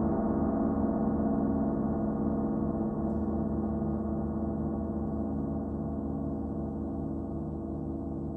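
38-inch Paiste Sound Creation Earth gong ringing on with no new strike: a dense cluster of steady low overtones that slowly fades, with a slow pulsing in its lowest tones.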